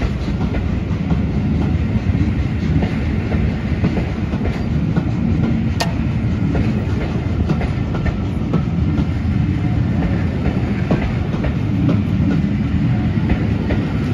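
Railway passenger coaches rolling past close by: a steady, loud rumble with the wheels clicking over rail joints, and one sharp click about six seconds in.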